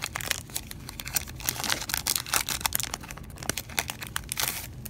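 Foil wrapper of a Pokémon Jungle booster pack crinkling and tearing as it is pulled open by hand, a dense run of crackles that stops just before the end.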